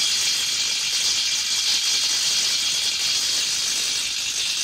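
Makita impact wrench hammering steadily in reverse on a bolt torqued to 700 Nm, a continuous fast rattle of impacts that does not break the bolt loose.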